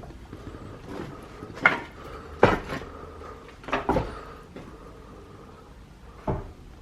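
A few irregular sharp clattering knocks of hard objects, about five in all, the loudest about two and a half and four seconds in.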